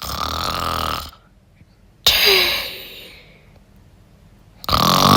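A person voice-acting snoring: a rough, rasping snore, a breathy exhale about two seconds in, then another rough snore starting near the end.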